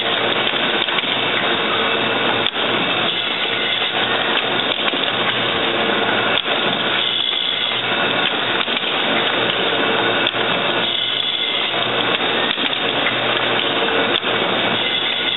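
Automatic needle assembly machine running, a steady mechanical clatter with occasional sharp clicks and a cycle that repeats about every four seconds.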